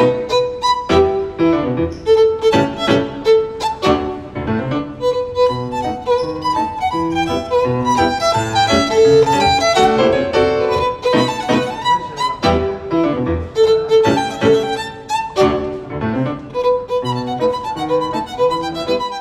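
Instrumental background music with a violin melody and many sharply struck notes.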